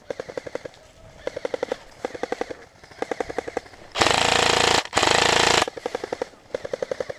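Airsoft rifles firing short full-auto bursts, a rapid rattle of about fifteen shots a second, burst after burst. About four seconds in comes a much louder, longer burst close to the microphone, broken once, as from the nearest player's own rifle.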